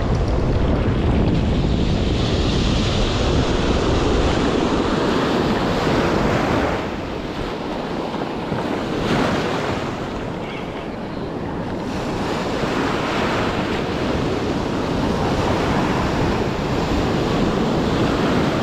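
Ocean surf washing around the wading angler's legs, with wind buffeting the microphone: a steady rushing noise with a deep rumble, easing somewhat about seven seconds in.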